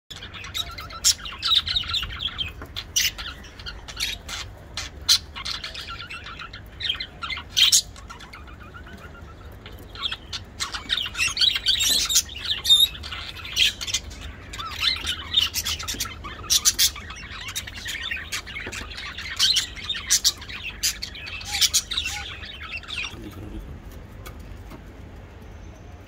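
Budgerigars chirping and chattering: quick, irregular runs of short sharp chirps and warbling notes, which thin out near the end.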